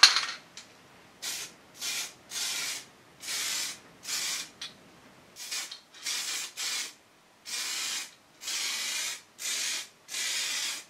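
Aerosol spray can of primer hissing in about a dozen short bursts, each roughly half a second long, with brief pauses between them as the repair is sprayed in light passes.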